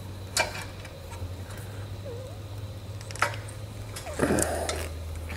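Sharp metal clicks of exhaust-hanger pliers working the rubber exhaust hangers under a BMW E92 M3, then a louder short scraping rustle about four seconds in, over a steady low hum.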